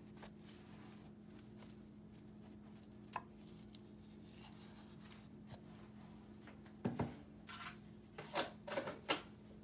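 A metal spoon scooping butter and knocking against its tub and a glass bowl: a single small clink, then a run of short scrapes and clicks in the second half, over a steady low hum.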